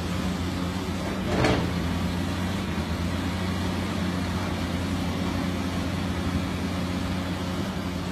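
Diesel excavator engines running steadily, with one short, loud sharp sound about a second and a half in.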